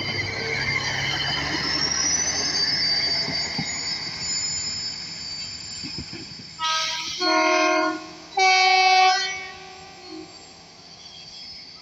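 Train rolling past with its wheels squealing on the rails, one squeal rising in pitch. About seven seconds in, the horn sounds three times, a short blast then two longer ones, and the rolling noise dies away.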